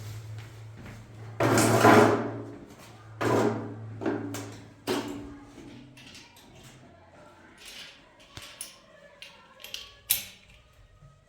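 A series of knocks and clatters, the loudest in the first half, some with a brief ringing after them, over a low steady hum.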